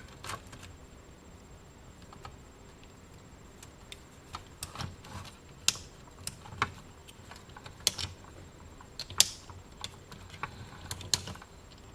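Scattered small clicks and taps as pliers and fingers work a bent slide switch inside an open Midland CB radio, sparse at first and more frequent after a few seconds.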